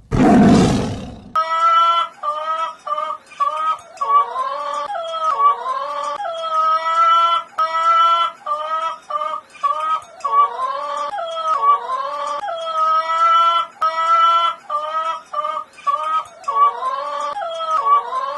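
A lion's roar ends about a second in. It is followed by a dog whining and howling in short, high-pitched cries, a few a second, with a falling, drawn-out howl every few seconds.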